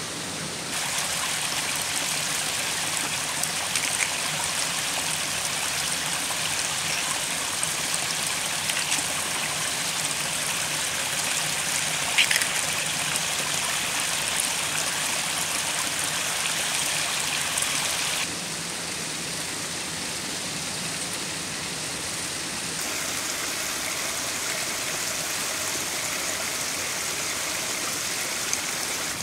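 Stream water running steadily, with a few light clicks and taps over it. The water noise steps up about a second in and drops back around eighteen seconds.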